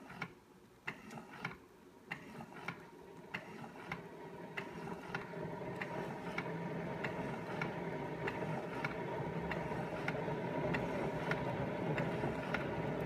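Keurig 2.0 coffee brewer brewing: a steady pump hum that grows louder over the first few seconds and then holds, with a regular tick about three times every two seconds as the drink pours into the cup.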